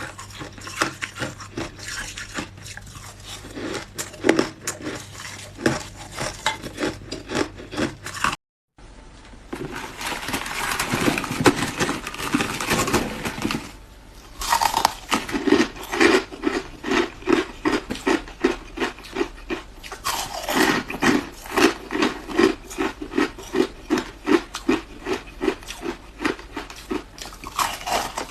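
Close-miked ice being bitten and chewed, with many sharp crunches. The sound cuts out briefly about a third of the way in, then comes back with denser crunching before settling into steady rhythmic chewing at about three bites a second.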